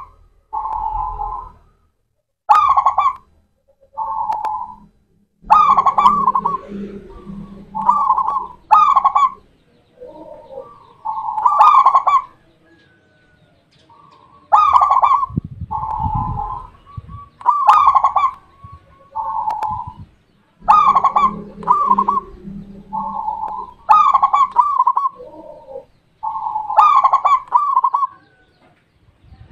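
Zebra dove (perkutut) singing: a string of repeated cooing phrases, each starting with a sharp high note and followed by short coos, with short pauses between phrases.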